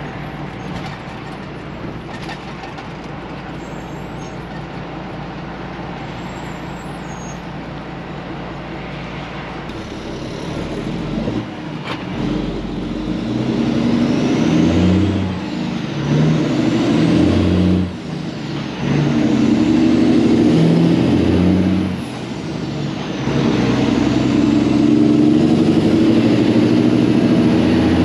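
Peterbilt 379 semi truck's diesel engine running steadily at low revs for about ten seconds, then pulling and accelerating through the gears. The revs climb and drop back at each shift, several times.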